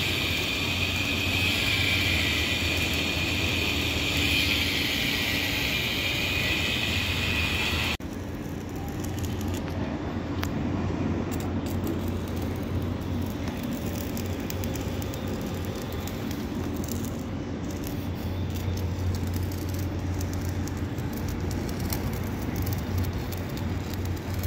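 Stick (arc) welding on a steel drain-grate frame: a steady crackling hiss from the arc over a low hum. About eight seconds in the sound changes abruptly to a quieter, rougher crackle with scattered clicks.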